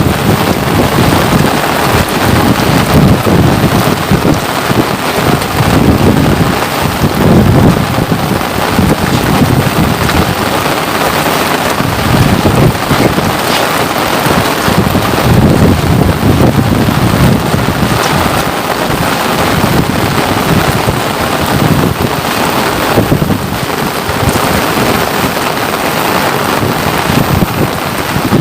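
Rain falling steadily, an even hiss, with an uneven low rumble underneath that swells and fades every second or two.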